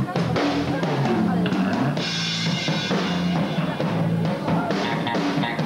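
Rock band playing on stage: an electric bass guitar playing a run of low notes over a drum kit, with a cymbal crash about two seconds in.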